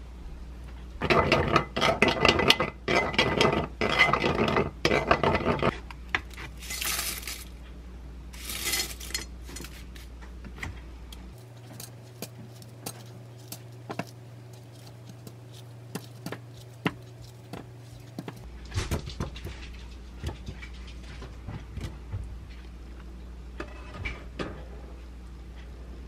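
Spoon stirring yogurt and syrup in a ceramic bowl, a quick run of clinks and scrapes for about five seconds, followed by two short rustles and then scattered light taps and clicks as a banana is sliced with a knife into the bowl.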